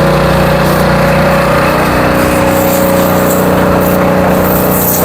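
Stationary concrete mixer running, its motor and mixing blades turning, giving a loud, steady mechanical drone with a steady hum.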